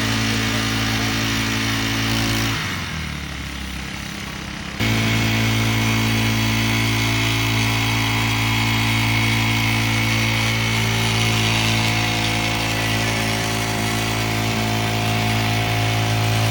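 Small engine running steadily at high speed. About two and a half seconds in it drops away, then comes back abruptly about two seconds later and runs on evenly.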